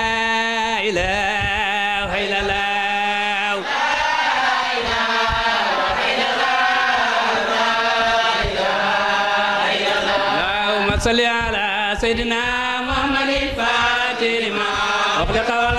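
Islamic devotional chanting in Arabic: a continuous melodic chant sung over a steady low held note.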